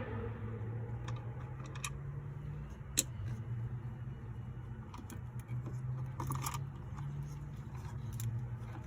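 Small clicks and rattles of steering-column parts and wiring being handled, with one sharp click about three seconds in and a short rattle around six seconds, over a steady low hum.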